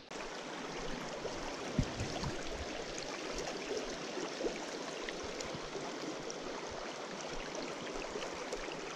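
Shallow stream water running steadily over riffles and rocks, a close, even rush and babble. A single light knock about two seconds in.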